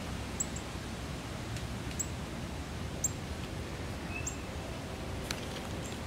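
Northern cardinal giving short, high chip calls, five or so spaced about a second apart, over a steady background hiss. A light click comes near the end.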